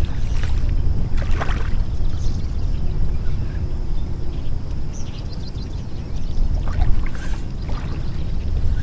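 Wind rumbling on the microphone, with several short splashes of shallow water, the clearest about a second and a half in and around seven seconds in.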